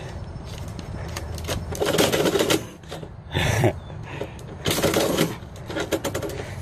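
Paper envelope scraping in and out of a metal door mail slot with the flap clattering, in several short bursts, as a cat on the inside pushes the mail back out.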